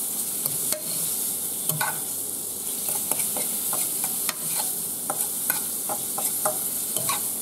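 Peeled yabby tails sizzling steadily in hot butter and garlic in a non-stick frying pan. A fork stirs them with scattered clicks and scrapes against the pan.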